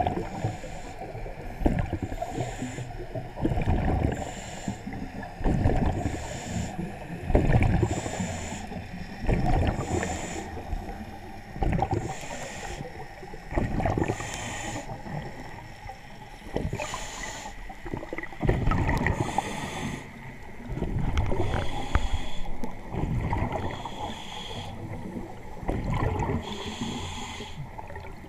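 Scuba diver breathing underwater through a regulator: a short hiss on each inhale and a burst of rumbling exhaust bubbles on each exhale, repeating about every two seconds.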